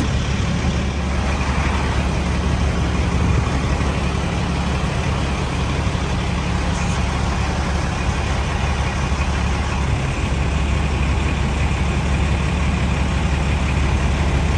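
A vehicle engine idling with a steady low drone.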